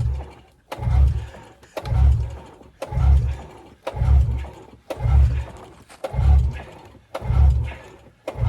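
Yamaha Venture snowmobile's two-stroke engine being hand-cranked with its recoil pull-starter on full choke: nine pulls about a second apart, each a sharp snap of the starter followed by a short low whirring rush of the engine turning over without firing. This is the freshly rebuilt engine being cranked to prime it after months of sitting.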